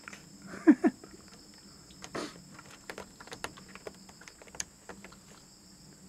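Tortoiseshell cat giving two short, loud, hoarse frog-like croaks close together about a second in, an unusual voice for this cat, followed by scattered rustles and clicks. Steady high insect chirring runs underneath.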